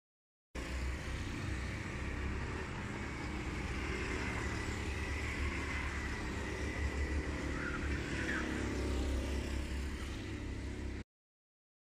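Go-kart engines running on the track, heard from a distance as a steady drone over a low rumble. The sound starts half a second in and cuts off abruptly near the end.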